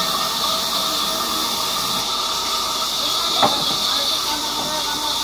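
Large sawmill band saw running and cutting a mahogany beam as it is fed through the blade, a steady hiss. One sharp knock about three and a half seconds in.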